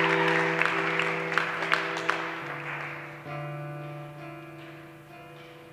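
Audience applause that dies away over the first three seconds, under slow music of long held notes that change pitch twice.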